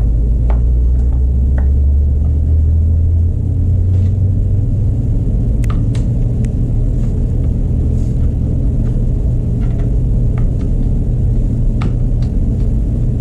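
Steady low background rumble with scattered light clicks and taps of chainsaw parts and tools being handled during reassembly.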